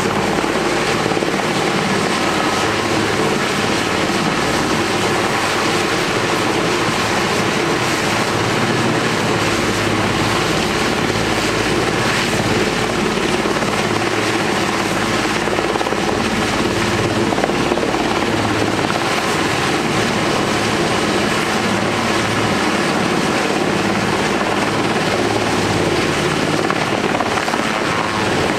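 Super Puma helicopter hovering low while it lifts a car on its cable, its rotor and twin turbines making a loud, steady noise without a break.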